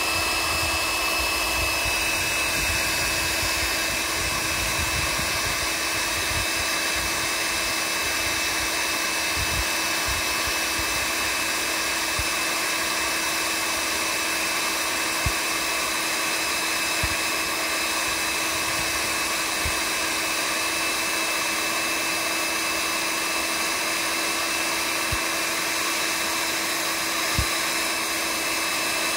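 Handheld electric heat gun blowing steadily, its fan whirring with an unchanging hum, as it heats wood pellets in a pizza-oven burner tray to light them. A few faint knocks come through about halfway and near the end.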